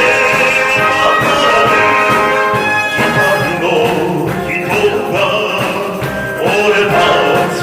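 Background music with orchestral and brass instruments.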